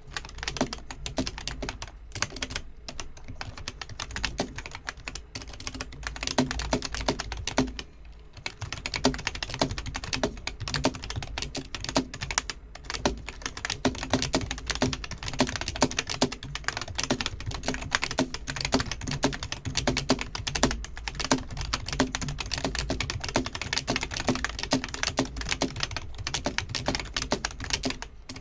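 Fast touch-typing on a Masione half-mechanical keyboard: a dense, rapid run of key clicks and spring-back, with a brief pause about eight seconds in. The clicks are quieter than a Cherry MX Blue's, more like a Cherry Brown switch.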